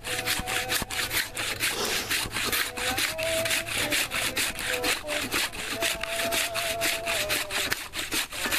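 Cross-cut handsaw cutting through a fallen log in quick, even back-and-forth strokes.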